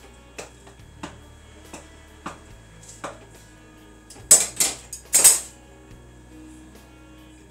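Wooden spoon knocking against a stainless steel cooking pot while mashing potatoes and maize, one sharp knock about every two-thirds of a second, then a few much louder clattering knocks about four to five seconds in.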